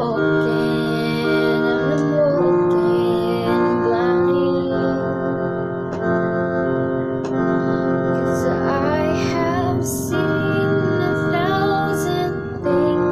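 Electronic keyboard playing held piano chords, with a girl's singing voice coming in and out over it.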